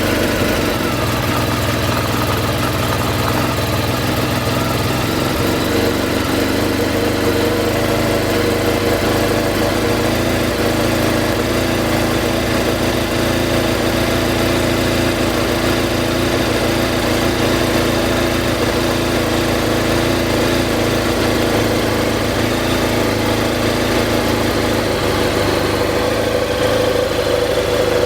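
Honda VFR1200F's V4 engine idling steadily through its stock exhaust.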